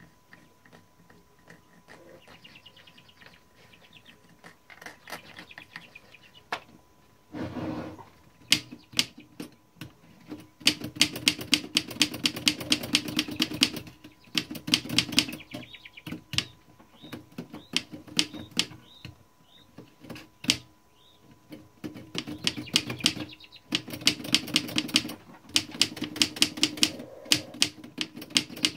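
Keys of a 1912 Mercedes No. 3 typewriter pressed over and over in fast runs of sharp clacks, broken by short pauses. The freshly oiled keys are being worked in until they stop sticking.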